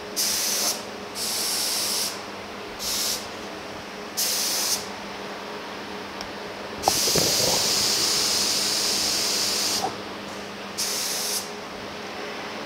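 Gravity-feed spray gun spraying thin one-component self-etching primer at low air pressure, about 8 to 10 PSI at the gun. There are several short hissing bursts of a second or less as the trigger is pulled, with the gun being adjusted on the part. Then comes one longer spray of about three seconds, and a last short burst near the end.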